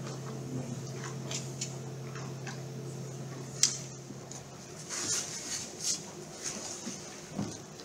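Low-level room sound of people moving on a dance studio floor: faint rustling, short hissy sounds and scattered light clicks, with one sharp click about three and a half seconds in. A steady low hum stops a little past halfway.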